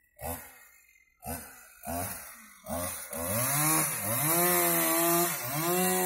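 Small engine firing in four short bursts, then catching about three seconds in and running on steadily, its pitch rising and falling with the throttle.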